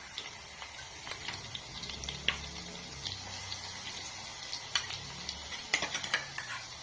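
Coarsely ground garlic frying in hot oil in a pan, a steady sizzle, with a few sharp clicks of the stirring spoon against the pan.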